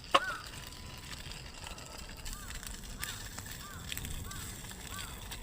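A bird calling over and over in short arched notes, about two to three a second, with a single sharp click just after the start.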